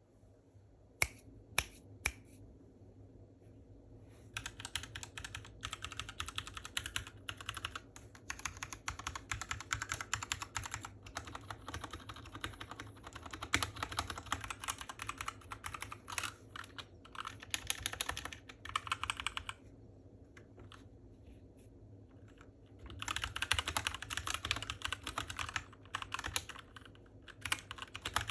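Typing on a Keychron K6 mechanical keyboard: a few single keystrokes, then fast continuous typing. The typing stops for a few seconds past the middle, then resumes near the end.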